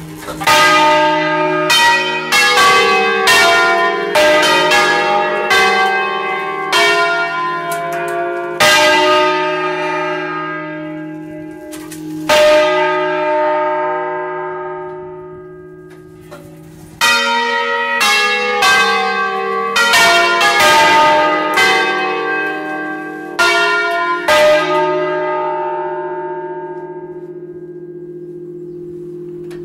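A peal of five bronze church bells in E-flat (tenor E-flat 3), cast by Achille Mazzola of Valduggia in 1951, rung by the tower's automatic controller from close range. The bells strike in two quick runs, the second starting about four seconds after the first dies down, and a low, lingering hum rings on after each run.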